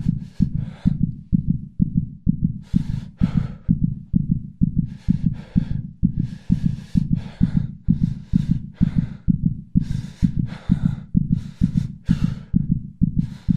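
Suspense sound effect of heavy, tense human breathing: quick airy breaths, mostly in pairs, over a steady low pulse at about two beats a second.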